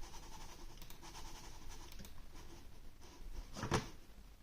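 Faint scratching of a Rii RK900 gaming mouse sliding on a surface, with a few light clicks from its buttons being tried. A short, louder thump comes about three and a half seconds in.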